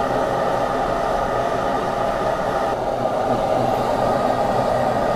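A steady, loud mechanical roar with a faint hum in it.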